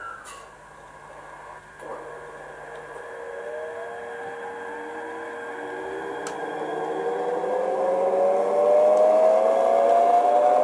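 Sound decoder of an HO-scale E353 model train playing the electric train's motor sound. A steady hum gives way to a whine that rises in pitch and grows louder as the train pulls away and accelerates, typical of an inverter-driven electric train.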